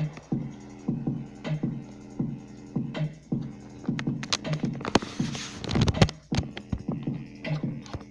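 Bass-heavy electronic music with a steady, repeating beat, played loud through a homemade toolbox boombox built from two car speakers and a small amplifier.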